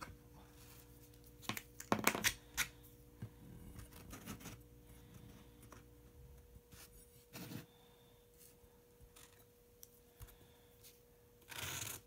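Quiet handling sounds of a ruler and felt-tip marker on an EPP foam wing: scattered light taps and clicks, then a short scratch near the end as the marker draws a line on the foam. A faint steady hum lies underneath.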